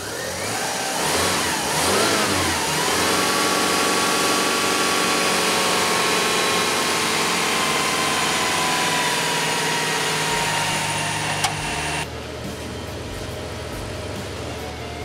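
A 1996 Subaru Legacy's 2.2-litre flat-four engine catches and revs up and down a couple of times, then runs at a high idle whose pitch sags slowly. There is a sharp click shortly before the sound changes abruptly, near the end, to a quieter, duller steady hum.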